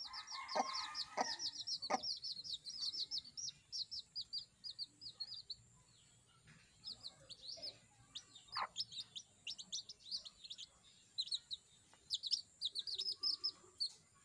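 Baby chicks peeping: quick, high-pitched cheeps in long runs, with a short pause about halfway. A mother hen clucks low a few times in the first couple of seconds.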